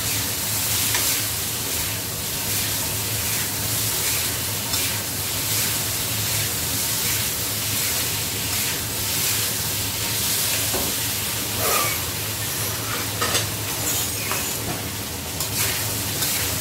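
Shrimp sizzling in a hot wok while a spatula stirs and scrapes them, with scattered clinks of the utensil against the pan, a few louder ones in the second half.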